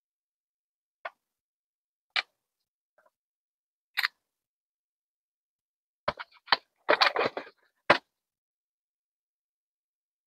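Sharp clicks and taps of items and packaging being handled: three single clicks spaced a second or two apart, then a quick run of clicks and knocks about six to eight seconds in.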